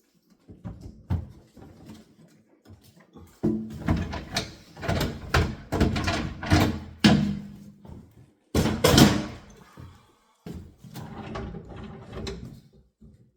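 Irregular knocks, bumps and rustles of a new refrigerator and its packaging being handled, with door- and drawer-like thuds, thickest in the middle stretch.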